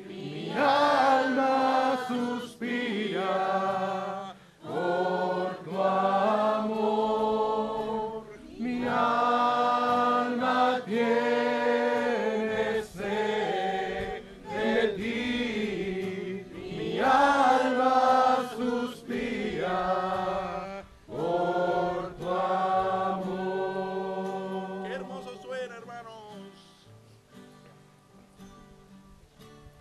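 A group of worshippers singing a slow Spanish worship song together, drawing out long held notes. The singing fades away over the last few seconds.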